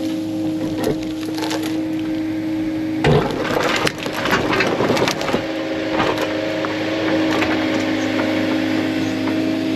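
Excavator's diesel engine running steadily under load while brush and branches snap and crack, with a louder crashing spell about three seconds in as a clump of brush is broken and pushed over.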